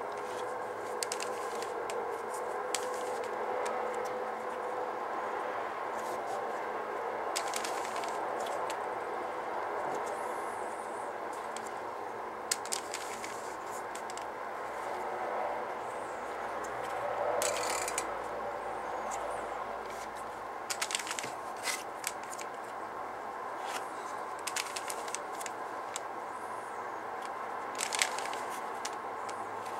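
Rubik's cube layers being turned by hand through a scramble: scattered plastic clicks and scrapes, sometimes in quick runs of several, over a steady background hum.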